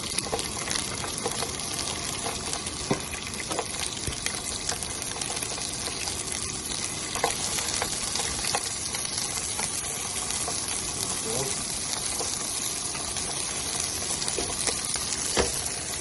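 Garlic and thin fish fillets frying in olive oil in a pan: a steady sizzle with a few light clicks.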